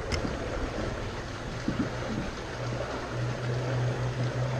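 Steady rush of moving water, with a low motor hum that grows stronger about three seconds in.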